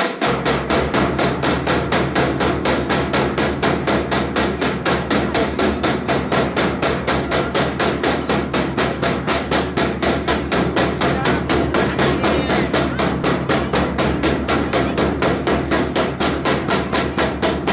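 A fast, steady percussive beat, about four to five sharp hits a second, keeping time for a drill display, with a low steady drone underneath.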